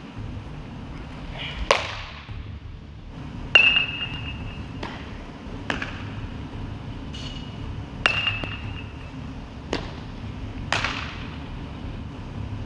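A series of about seven sharp knocks of baseballs striking gloves and a bat, one to two seconds apart, several leaving a short high metallic ring, over the steady hum and echo of a large indoor hall.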